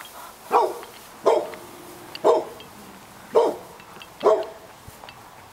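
A dog barking, five single barks spaced about a second apart.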